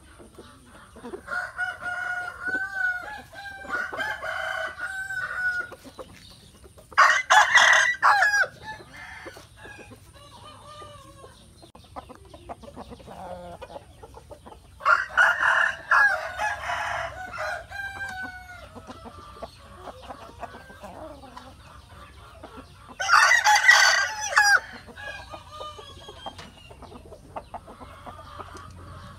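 Roosters crowing: three loud, harsh crows about eight seconds apart, with softer clucking and calls in between.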